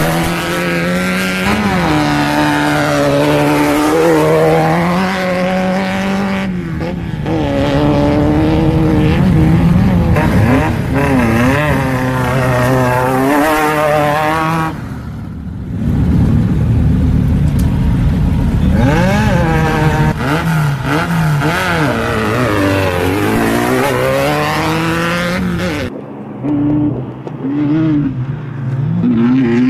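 Off-road race buggy engines accelerating hard off a dirt start, the engine pitch climbing and dropping again and again through gear changes as one buggy after another pulls away. Near the end the sound changes to a thinner, more distant buggy engine running across the desert.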